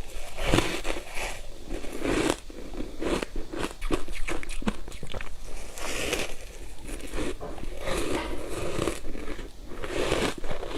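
Close-miked biting and crunching of ice pieces coated in matcha powder, with irregular crunches and chewing following one another.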